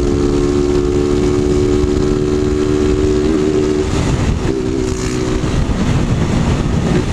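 A motorcycle with a loud 'de lata' (open can-style) exhaust screaming at high revs, holding a steady high note that shifts about three seconds in, wavers, then fades out, over the wind and road rush of a riding motorcycle.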